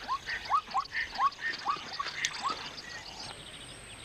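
Frogs calling at a rain-filled water hole: a run of about seven short rising calls over a dense, high-pitched chorus of pulsing calls, which thins out about three seconds in.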